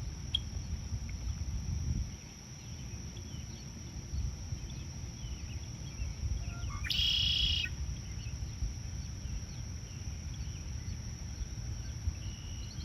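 Lakeside outdoor ambience: wind rumble on the microphone with scattered faint bird chirps over a thin steady high tone, and one louder, harsher bird call lasting under a second about seven seconds in.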